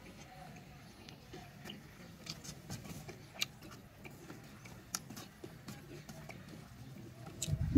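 Scattered light clicks and taps at irregular intervals over faint background noise, followed near the end by a louder burst of low rumbling bumps.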